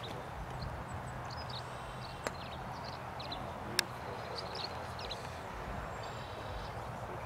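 Outdoor ambience: a steady low hiss with small birds chirping in short high notes, and two sharp clicks about a second and a half apart.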